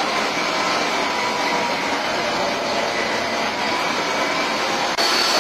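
Steady noise of running machinery, like an engine or motor at constant speed. About five seconds in, an abrupt cut brings a slightly louder stretch with a high whine over the noise.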